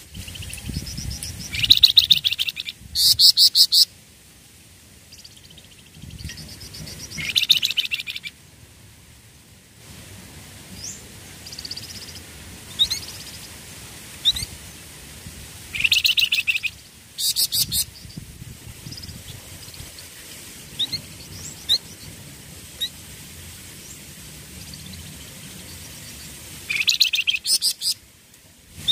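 Caged flamboyan songbird singing: four loud bursts of fast, rapidly repeated high notes, with single short chirps in the gaps between them.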